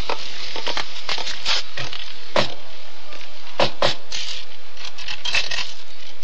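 Radio-drama sound effects of footsteps: scattered sharp taps, some in quick pairs, over a steady hiss.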